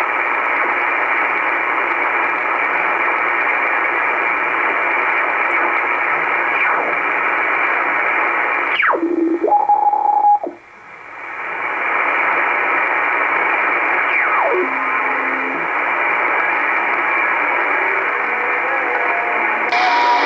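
Shortwave communications receiver in upper sideband being tuned across the band: steady static hiss, with two whistles that fall in pitch as signals sweep past, each ending in a short steady tone, and a brief dropout about halfway. Near the end the receiver is switched to AM and the hiss opens out higher.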